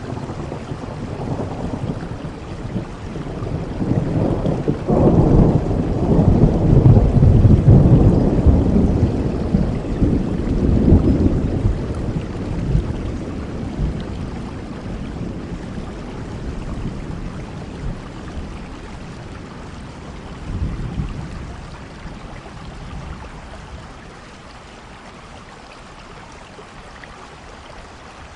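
A long roll of thunder over steady rain: the low rumble builds, is loudest from about five to twelve seconds in, then slowly dies away, with a smaller rumble about twenty seconds in, leaving only the rain's hiss near the end.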